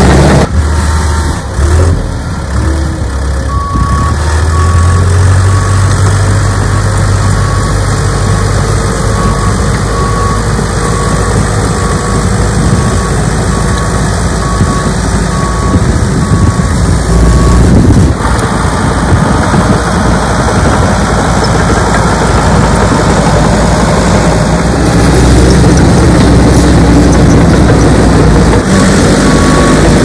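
Heavy diesel engines of a crawler dozer and a Cat tracked excavator running under work. A reversing alarm beeps about once a second through much of the first half and again near the end.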